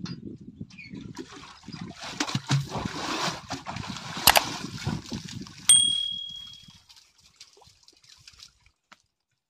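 Metal bucket on a rope dipped into water at the bottom of a shallow dug pit, splashing and sloshing as it fills and is hauled up. A sharp knock about four seconds in, then a metallic clink with a short ring near six seconds.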